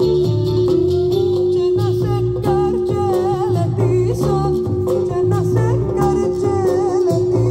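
Live band music with plucked strings, over a bass line in regular repeating notes and a long held note. A wavering, vibrato melody line, sung or played, rides on top.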